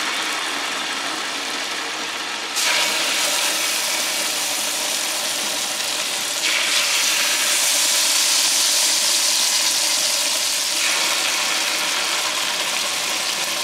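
Marinated pork chops sizzling in butter on a hot electric griddle. The sizzle gets louder about two and a half seconds in and again about six and a half seconds in, as more chops are laid on.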